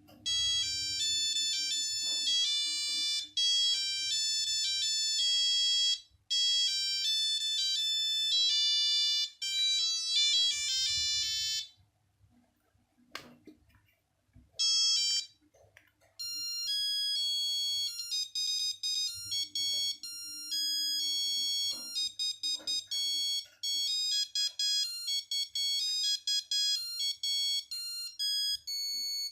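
Nokia 8210 playing its built-in monophonic ringtones: one beeping tune that stops about 12 seconds in, a single click, then a different, higher beeping tune from about 15 seconds in.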